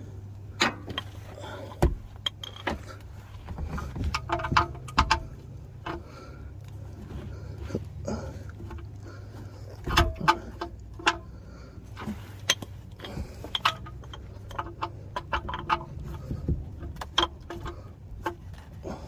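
Irregular metallic clicks and clinks of a socket wrench working on an oil drain plug as it is tightened, some with a short ring, over a steady low hum.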